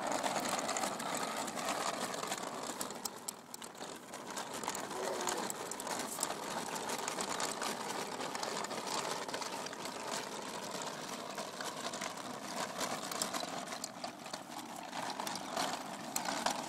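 Plastic baby walker's small wheels rolling over asphalt: a steady rattling clatter of many fine clicks, easing briefly about three seconds in.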